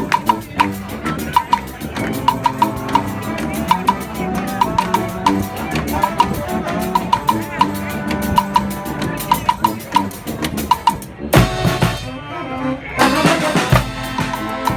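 Street marching band playing a tune over drum kit and percussion, with a steady clicking beat on top. About eleven seconds in the texture breaks into a loud, drum-heavy passage.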